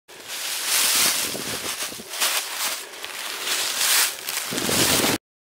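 Wind gusting across the microphone: a rushing hiss that swells and eases irregularly, with low buffeting near the end, then cuts off abruptly.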